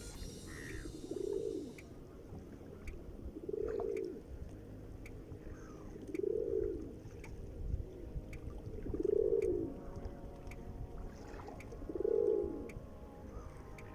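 Birds calling: a low, arched call repeated five times, about every two and a half to three seconds, with fainter, higher calls between.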